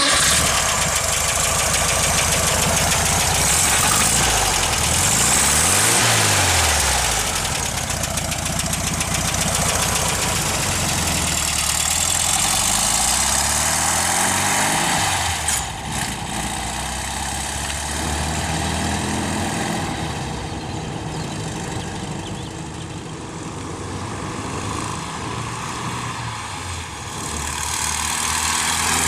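1965 Volkswagen Beetle's freshly built 1641cc air-cooled flat-four engine running and revving up and down, then pulling away through the gears. It grows fainter as the car moves off and louder again as it comes back near the end.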